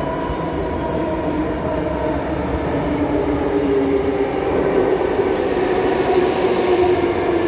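Sydney Trains Tangara electric train approaching through the tunnel into the underground platform. Its running noise is a rumble with a few steady tones, growing gradually louder as it nears.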